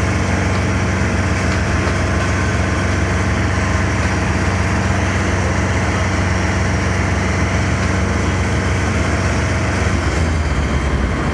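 An engine idling steadily, its note shifting slightly near the end.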